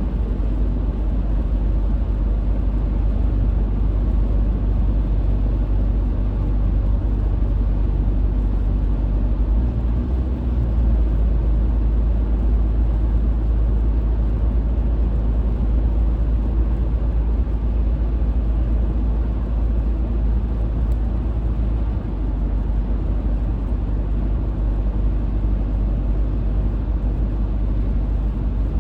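Car driving at highway speed: a steady low rumble of tyres and engine.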